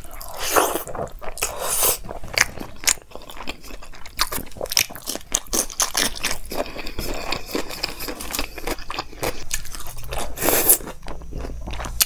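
A person chewing a big hand-fed mouthful of dal, rice and paneer, close to the microphone: many short, irregular chewing and mouth sounds.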